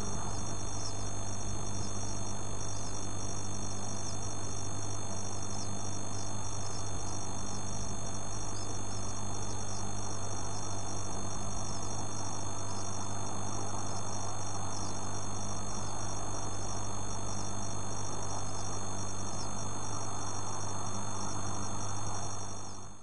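A steady low electrical or mechanical hum with a hiss over it, unchanging, fading out just before the end.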